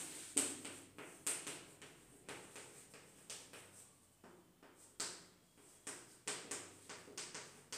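Chalk writing on a chalkboard: an irregular string of light taps and short scratches as each letter is written.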